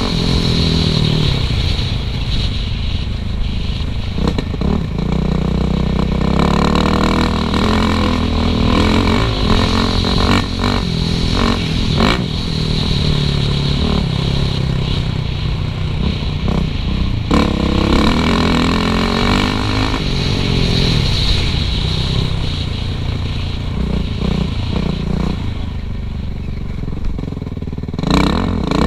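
Suzuki RM-Z450 dirt bike's single-cylinder four-stroke engine revving up and down as it is ridden along a trail, with a few sharp knocks and rattles from the bike.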